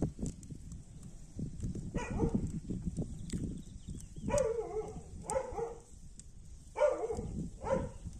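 A dog barking several times, the barks mostly coming in pairs, over a steady low rumble.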